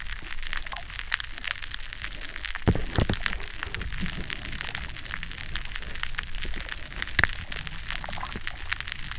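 Underwater clicking picked up by hydrophones in shallow sea water: a dense, continuous crackle of sharp clicks, with two louder low thumps about three seconds in and one sharp loud click a little after seven seconds. The recordists suspect the clicks come from shell-dwelling mollusks pumping as they filter-feed at favourable tides.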